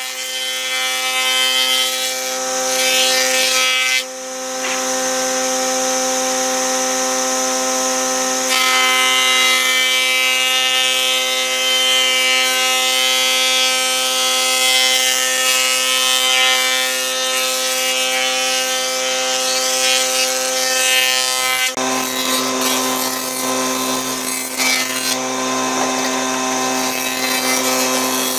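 Jointer running steadily with its spinning cutterhead shaving a pallet board as it is fed across the bed: a steady machine whine under a rough cutting noise. The sound changes abruptly three times.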